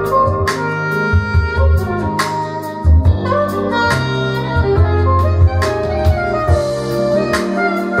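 Smooth jazz played back through Børresen Acoustics X6 tower loudspeakers and heard in the room: a held lead melody over deep bass notes, with sharp hits every second or so.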